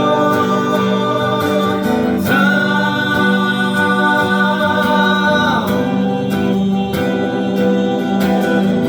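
A singer holding one long note with a slight vibrato for about three seconds, over strummed acoustic guitar.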